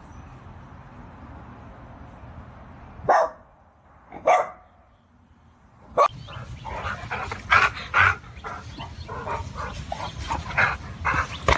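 A dog barking: two loud barks about a second apart, then from about six seconds in a string of quicker barks.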